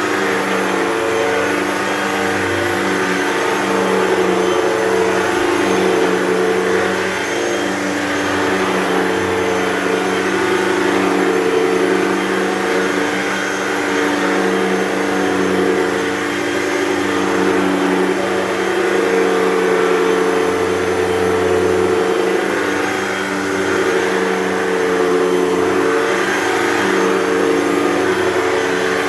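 Hoover Total Home Pet upright vacuum cleaner running: a steady motor hum with a hiss of airflow, swelling and easing slightly every few seconds.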